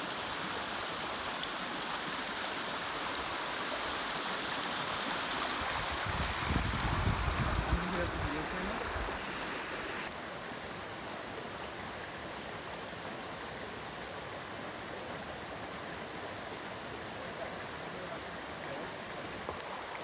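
Rushing water of a small waterfall spilling over rocks, changing about halfway through to the softer, steadier flow of a shallow rocky brook. A brief low rumble a few seconds in.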